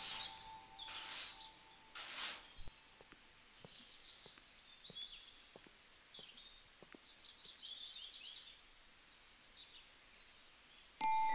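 Three swishes of a long-bristled hand broom sweeping a paved footpath, followed by faint birds chirping and twittering. Near the end, chime-like music tones start abruptly and are the loudest sound.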